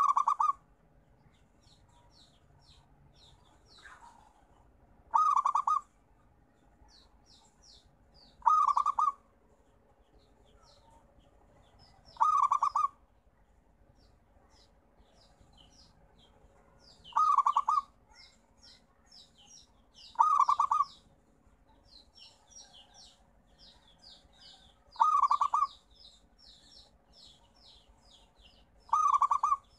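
Zebra dove (perkutut) cooing: eight short, rapid staccato coo phrases spaced a few seconds apart. Faint high chirping runs between the phrases.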